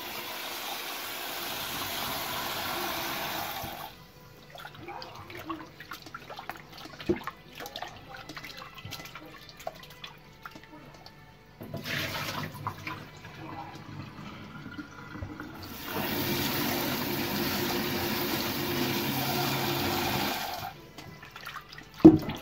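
Kitchen tap running into a stainless steel bowl of raw chicken wings and the steel sink below, in three spells, with quieter handling of the wet wings in the bowl in between. A sharp knock comes near the end.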